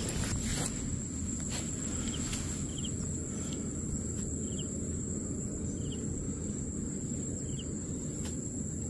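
Outdoor insect sound: a steady, high-pitched, cricket-like trill, with a few short soft chirps scattered through it and a low rumble of outdoor noise underneath.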